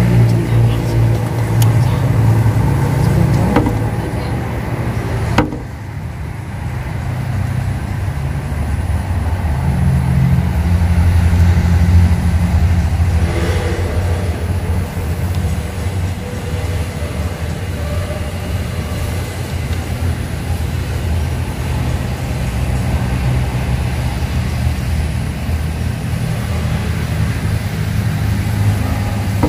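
Low, steady engine rumble of a motor vehicle running, with a single sharp click about five seconds in.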